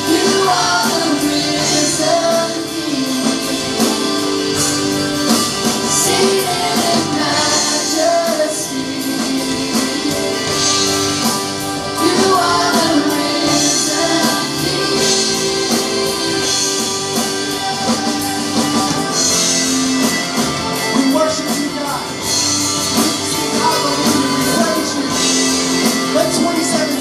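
Live worship band playing a song: voices singing into microphones over acoustic and electric guitars and drums.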